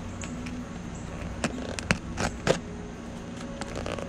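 Knife working at the tape and flaps of a small cardboard box: a few sharp scrapes and crackles between about one and a half and two and a half seconds in, over a low steady hum.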